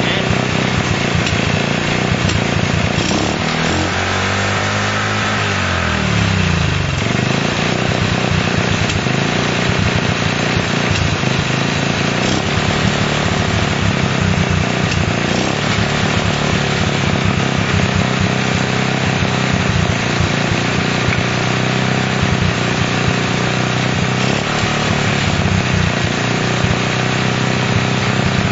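Honda CL70's small single-cylinder four-stroke engine running steadily on its stand, with one brief rev up and back down a few seconds in. It is running on a newly fitted aftermarket carburetor that is being tried out.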